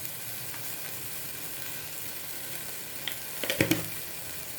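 Shallots and tomatoes frying in oil in an open pressure cooker, a steady sizzle, with a few sharp knocks of the stirring spoon against the pan about three and a half seconds in.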